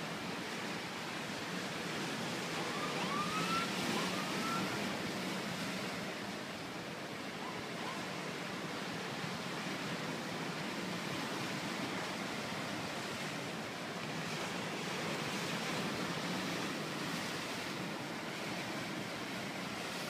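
Surf breaking and washing over a lava-rock shoreline: a steady rush of waves that swells slightly around four seconds in and again near sixteen seconds. Two faint, short rising whistles sound about three and four seconds in.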